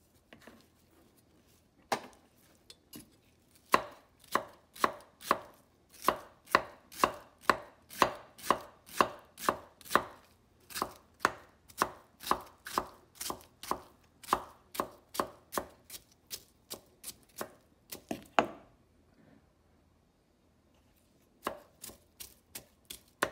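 Kitchen knife chopping mango on a bamboo cutting board, dicing it finely: a few scattered knocks, then a long run of steady chops about two a second, a short pause, and a quicker run of chops near the end.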